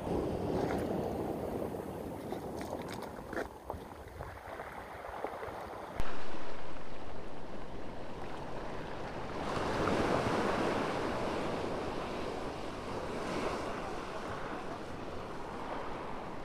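Ocean surf breaking and washing up the beach, with wind buffeting the microphone. There are a few faint clicks in the first few seconds, and the sound jumps abruptly about six seconds in. Around ten seconds a wave surges and washes in louder, then eases off.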